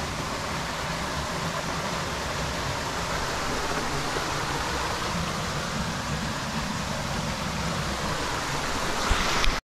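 Steady rushing of a steep mountain creek's water over rocks and small cascades. A brief knock near the end.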